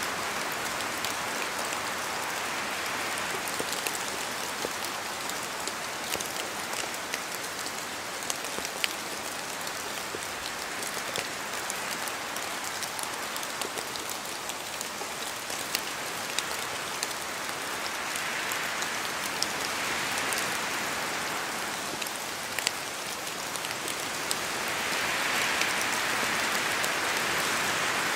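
Steady rain in a forest, with many separate drops pattering and ticking as they fall from the trees. The wash swells twice and is loudest near the end, as with gusts of wind.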